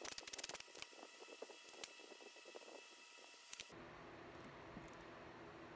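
Faint scattered clicks and light metallic taps of a socket ratchet and hands working on a car's throttle body while it is being unbolted. After a little under four seconds only faint steady room tone remains.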